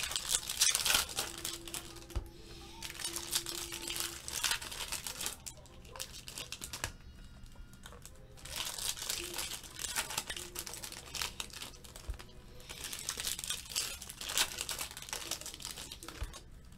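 Foil wrappers of baseball card packs crinkling and tearing as they are opened by hand, in several bursts of rustling with short pauses between.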